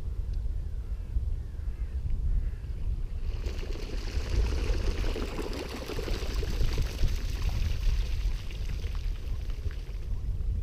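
Waterbirds splashing on a ditch, a rough rush of splashing that starts about three and a half seconds in and lasts some six seconds, over a steady low rumble of wind. A few short bird calls come before the splashing.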